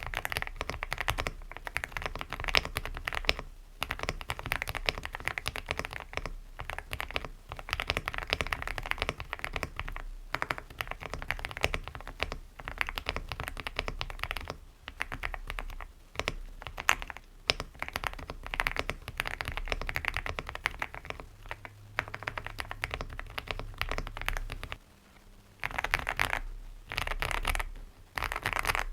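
Continuous fast typing on a mechanical keyboard fitted with Gateron Milky Yellow Pro V2 linear switches, a rapid run of key clacks with a few short pauses and a longer lull near the end.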